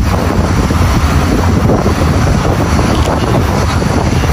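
Strong gusty wind buffeting the microphone of a moving bicycle rider: a loud, steady rushing noise, heaviest at the low end.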